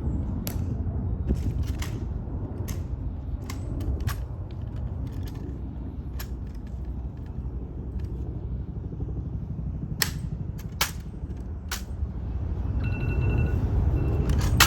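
Sharp clicks and snaps at irregular intervals over a low steady rumble. Near the end a smartphone alarm starts going off: a high, repeating electronic beep pattern.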